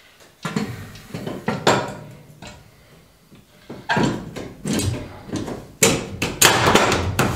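Metal knocking and scraping as a curved metal support piece is worked into place over a truck radiator: a handful of separate clunks and rubs, the loudest run of them near the end.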